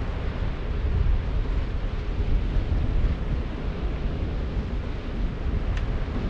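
Wind buffeting the microphone of a camera hanging from a kite line: a low, rumbling rush that swells and eases with the gusts.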